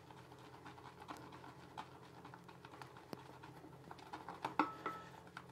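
Shaving brush whipping lather in a small metal bowl: faint soft scratching with scattered light clicks, a few slightly louder near the end.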